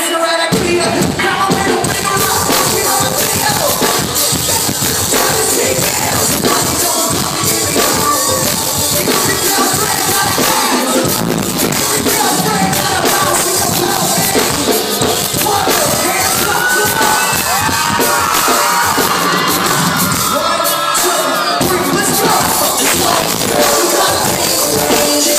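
Live music played loud through a concert sound system, with a singer's voice and a crowd cheering along.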